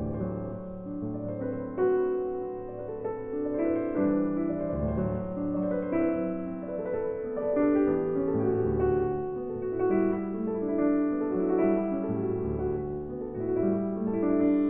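Slow, gentle piano music, with notes held and changing about every second over low bass notes.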